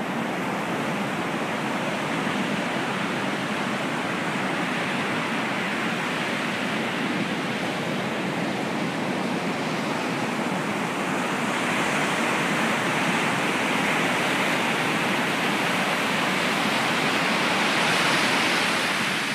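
Ocean surf breaking and washing up a sandy beach, a steady rushing that swells louder in the second half.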